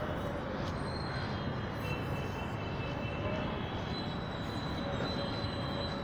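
Strong wind buffeting the microphone over a steady outdoor rumble and hiss, with faint thin high-pitched tones drifting in and out.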